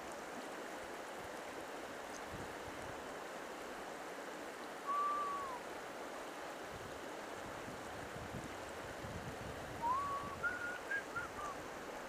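River water rushing steadily. A single short whistled note sounds about five seconds in, and a quick run of short high whistled notes comes near the end.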